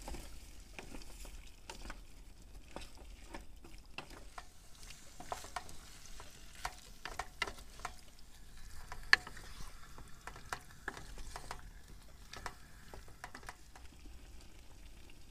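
Wooden spoon stirring stew in an aluminium pan on a portable gas stove, with repeated irregular clicks and knocks of the spoon against the pan over a faint steady hiss of cooking; the sharpest knock comes about nine seconds in.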